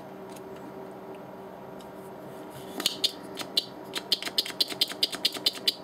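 Soldering iron tip working a solder joint on a circuit board during desoldering: a run of small sharp clicks and ticks, several a second, starting about halfway through over a faint steady hum.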